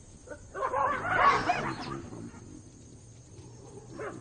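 Baboons and African wild dogs calling at each other in a standoff. A loud burst of shrill, wavering cries lasts about a second and a half, with fainter short calls just before it and again near the end.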